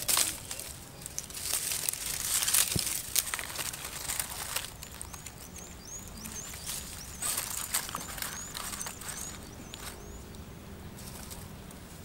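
Dry twigs and grass rustling and crackling as they are handled and piled over a small tinder flame, busiest in the first few seconds. A bird sings a quick series of short repeated chirps in the middle.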